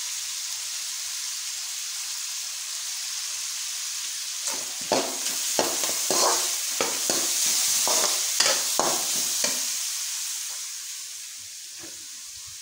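Diced vegetables and chicken sizzling in an aluminium wok, with a slotted metal spatula scraping and knocking against the pan in a quick run of stirring strokes from about four and a half seconds in to about nine and a half seconds. The sizzle drops a little quieter near the end.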